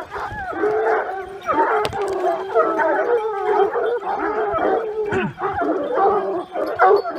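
A pack of Gascon Saintongeois hounds baying together, several voices overlapping without pause, as they run on the scent of a wild boar.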